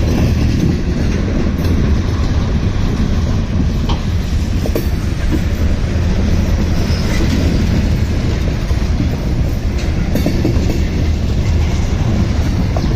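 Freight train cars rolling past with a steady, loud, low rumble and occasional clacks from the wheels.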